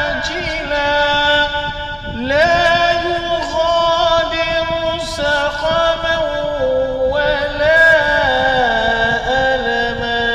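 A man chanting Arabic ruqyah recitation in long, drawn-out notes, holding each pitch for a second or more and gliding slowly between them.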